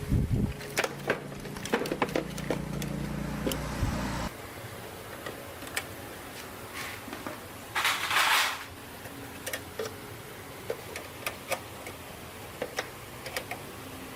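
Small motorbike engine running steadily, then cutting off abruptly about four seconds in. Scattered metallic clicks of tools follow, with one short loud hiss about halfway through.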